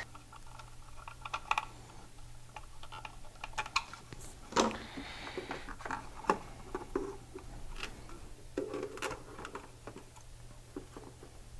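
Scattered light clicks and taps of hands handling a plastic solar charge controller and its wires, a few sharper knocks in the middle, over a steady low hum.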